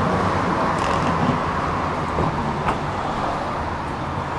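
Steady city street traffic noise, with two faint ticks.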